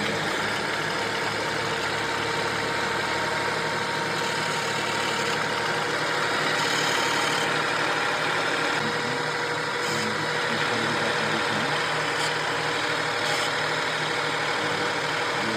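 Tata Nexon facelift's 1.2-litre three-cylinder turbo petrol engine running steadily at raised cold-start revs, with a crank noise from the engine that the owner says comes on when the cold engine revs high and goes away at lower revs.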